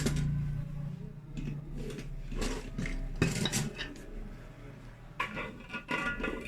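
Cutlery clinking and knocking against dishes and spice containers: a series of light, irregular clinks, with a brief ringing clink near the end.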